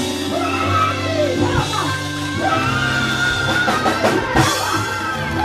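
Live gospel praise music: women singing into a microphone over a band with drums and held bass notes, with a run of drum hits about four seconds in.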